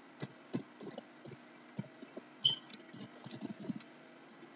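Typing on a computer keyboard: faint, irregular key clicks as a terminal command is entered. One brief high-pitched chirp about halfway through is the loudest moment.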